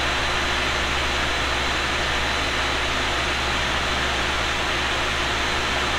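Cooling fans running steadily: an even whooshing hiss, with a low hum underneath.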